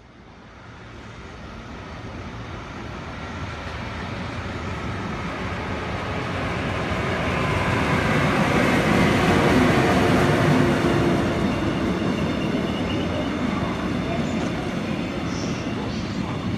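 Korail electric locomotive hauling a passenger train past: the rumble of the train on the rails grows steadily as it approaches, is loudest about nine seconds in as the locomotive goes by, then eases a little as the coaches keep rolling past.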